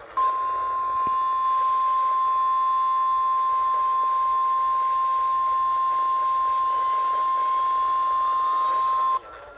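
NOAA Weather Radio 1050 Hz warning alarm tone: a single steady loud beep held for about nine seconds, then cut off. It signals that a warning broadcast, here a tornado warning, follows. A faint rising whistle creeps in behind it over the last couple of seconds.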